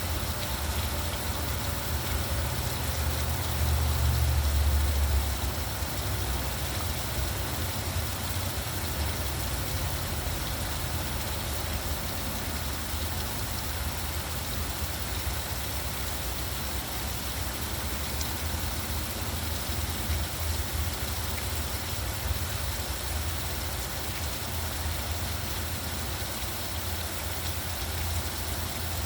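Steady rain with the low rumble of road traffic underneath; the rumble swells louder for a couple of seconds about four seconds in.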